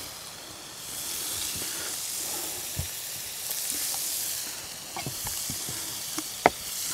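Ground beef sizzling in a skillet, a steady hiss. From about five seconds in come a few sharp knocks of a knife cutting a squash on the board.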